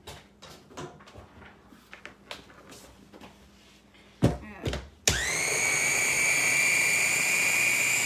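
A few light clicks and two sharp knocks as the parts of a Ninja food chopper are handled on the counter. About five seconds in, its motor starts with a quick rise in pitch and settles into a steady high-pitched whine, blending cottage cheese smooth.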